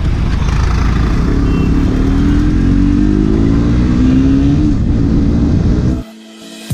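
Motorcycle engine running under heavy wind rush on the microphone, its note rising slowly as the bike accelerates. About six seconds in it cuts off to a quieter passage with steady electronic tones.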